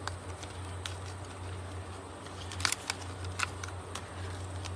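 Die-cut cardstock pieces being pressed out of their sheet by hand: a few small sharp paper clicks and snaps, the loudest about two and a half seconds in, with light paper rustling between them. A steady low hum runs underneath.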